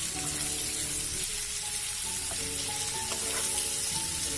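Chopped onions and shallots sizzling in hot coconut oil in a pan as they are sautéed, a steady frying hiss, with soft background music.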